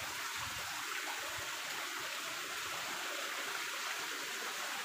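Small waterfall: a steady, even sound of falling water.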